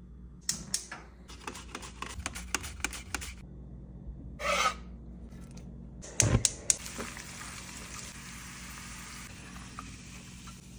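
Kitchen clatter: a run of light clicks over the first few seconds, a short noise, and a few sharp knocks about six seconds in. Then garlic slices sizzle steadily in hot oil in a stainless steel skillet.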